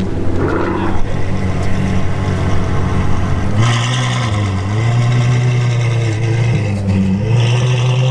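Ferrari F12 Novitec N-Largo S's V12, breathing through an iPE exhaust, running at a steady idle. About three and a half seconds in it is lightly revved, and the pitch rises twice before settling back.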